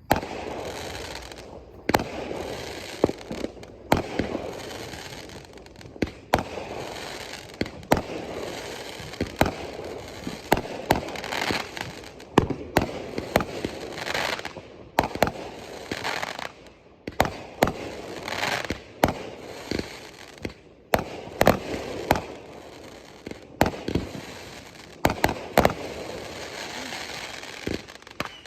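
Fireworks going off in a continuous run: sharp bangs, irregularly about one or two a second, with hissing and crackling between them.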